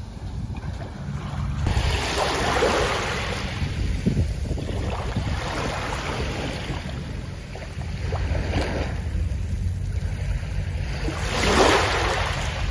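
Sea waves washing onto the beach, the surf hiss swelling about two seconds in and again near the end, with wind rumbling on the microphone.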